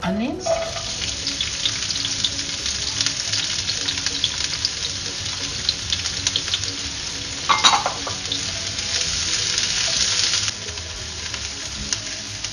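Diced onion tipped into hot oil in a frying pan, sizzling as it hits the oil and then stirred with a spatula. There is a short knock about seven and a half seconds in, and the sizzle drops sharply near the end.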